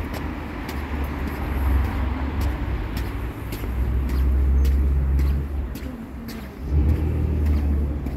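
Footsteps of a person walking on a paved street, light regular steps about every half second, over a low rumble that swells and drops.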